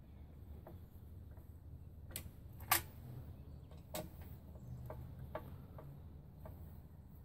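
Screwdriver working the screws of the metal bearing plates on a pedal tractor's crank axle: scattered small metallic clicks and ticks, with a sharp louder click about two and a half seconds in and another about four seconds in.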